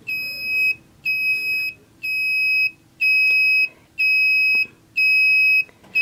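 A piezo buzzer with a built-in driver circuit gives a high-pitched beep about once a second, each beep lasting about two-thirds of a second. The buzzer's own driver makes the tone, and the 555 timer only switches it on and off, so it beeps in step with the blinking LED.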